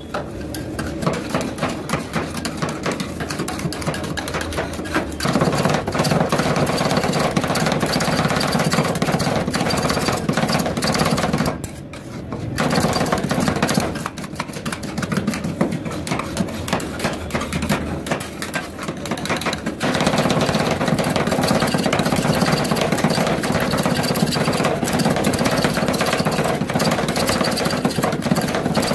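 Two metal spatulas rapidly chopping and scraping ice cream mix on the steel cold plate of a rolled ice cream machine: a fast, continuous clatter of metal taps, with a short pause about twelve seconds in.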